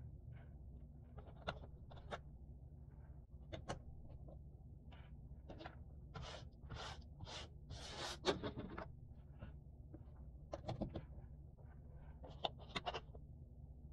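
Cardboard jigsaw puzzle pieces being handled on a table: scattered light clicks and taps, with a run of about four sliding, rustling swishes midway. A low steady hum runs underneath.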